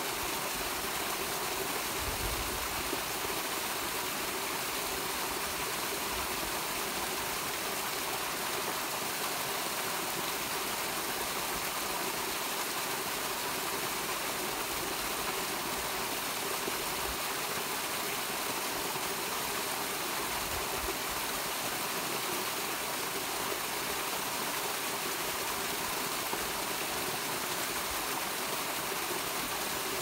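Small waterfall pouring over rock into a pool, a steady, even splashing and rushing of water.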